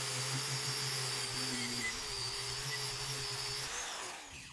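Angle grinder with a wire cup brush running against a rusty weight plate, stripping off rust and the old coating. It runs at a steady pitch, then is switched off and winds down near the end.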